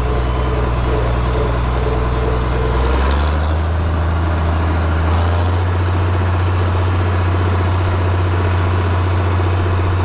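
Farmall 856's 407-cubic-inch six-cylinder diesel engine running, its pitch stepping up about three seconds in and again about five seconds in.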